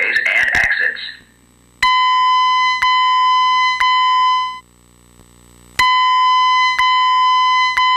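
Fire alarm voice evacuation speaker sounding its electronic alert tone: a steady electronic tone pulsed three times a second apart, a short pause, then three more, the three-pulse evacuation pattern played between recorded announcements. A recorded evacuation voice message ends about a second in.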